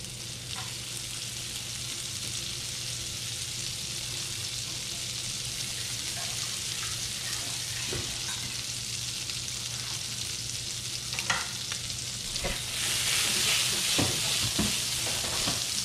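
Butter melting and sizzling in a hot skillet over scallop drippings as it begins to brown, a steady hiss that grows louder in the last few seconds as the pan is swirled, with a few light knocks of the pan.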